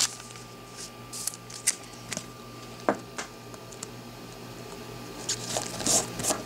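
Hands handling trading cards and a clear plastic card holder: scattered light clicks, taps and rustles, over a faint steady electrical hum.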